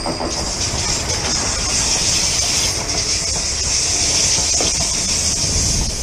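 Electric commuter train running past on the track alongside, a steady rushing noise with a strong hiss.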